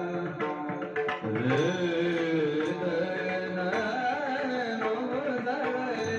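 Male voice singing a slow, drawn-out devotional melody with long held, bending notes, over a steady drone, with small hand cymbals (taal) and other percussion struck now and then.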